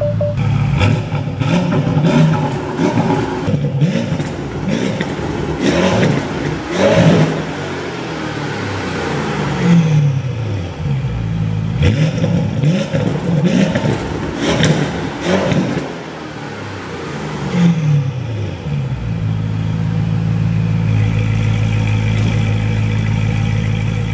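Porsche Panamera Turbo S E-Hybrid's 4.0-litre twin-turbo V8 free-revving in neutral through a Techart exhaust with catless downpipes: repeated blips rising and falling in pitch, with sharp cracks between the revs. For the last few seconds it runs steadily at an even pitch.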